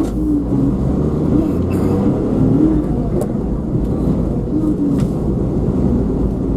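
Car driving: a steady engine and road rumble, with a wavering pitched line above it that rises and falls.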